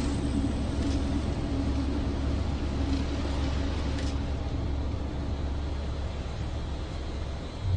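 Steady low rumble of a train yard with a broad hiss over it, and aerosol spray paint hissing onto a train car; one short spray hiss stands out about four seconds in.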